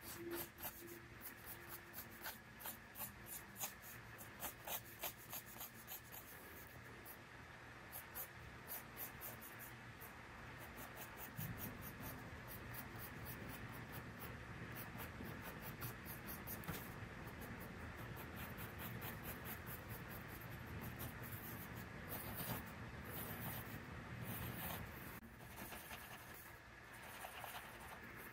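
Mechanical pencil sketching on a paper pad, faint. For the first several seconds it makes many short ticks and taps of the lead on the paper, then a steadier scratching of longer strokes from about eleven seconds in.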